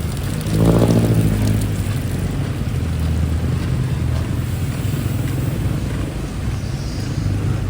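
A motor vehicle's engine running close by. It swells in loudly about half a second in, then settles into a steady low hum.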